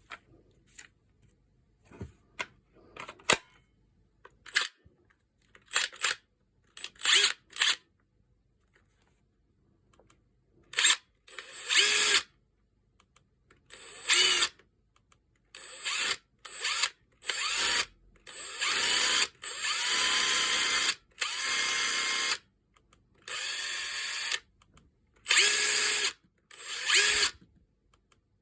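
Makita TD170D 18V cordless impact driver run in repeated trigger bursts, first a few short blips, then runs of one to three seconds with a steady high whine. The tool was pulled from site work for a grinding noise.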